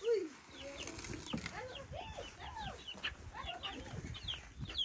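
Chickens clucking, many short calls overlapping one after another, with higher, quick chirps mixed in.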